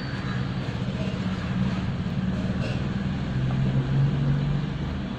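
A steady low mechanical rumble, like a motor running, over a noisy background hiss.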